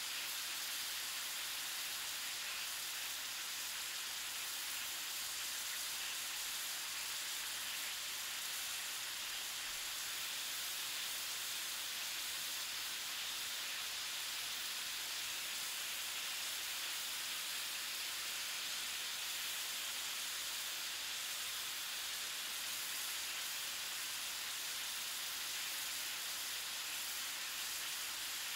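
Cooking sizzle on a stove: a steady, even hiss, with no single pops standing out.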